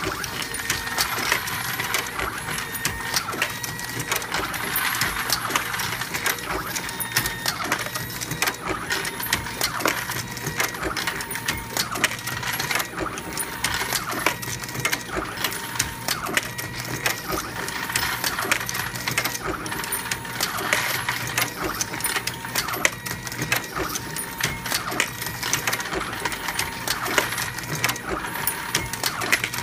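AmmoBot MK1 motor drive cycling a progressive reloading press that loads 9mm Luger at almost 1700 rounds an hour: a continuous mechanical clatter of rapid clicks and metallic clinks of brass cases and cartridges.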